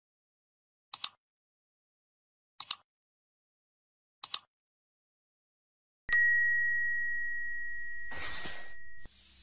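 Sound effects of an animated subscribe reminder: three computer-mouse double clicks about a second and a half apart as the cursor presses the like, subscribe and share buttons, then a single bright bell ding for the notification bell that rings out for about three seconds, with a brief swish near the end.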